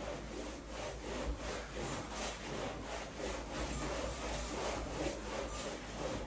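Damp cloth rubbed back and forth over freshly hung wallpaper, wiping it down with water in steady strokes, about three a second.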